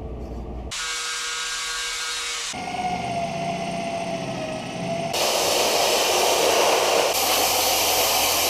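Power tools grinding and abrasive-cleaning car body metal, in short clips that cut abruptly from one to the next about every two seconds. Each clip is a steady, hissing grinding noise, and one of them carries a steady whine.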